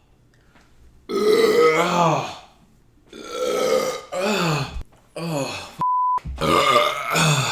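A man belching loudly, a run of about five long, drawn-out burps whose pitch falls away at the end of each. About six seconds in, a short steady beep cuts in between them.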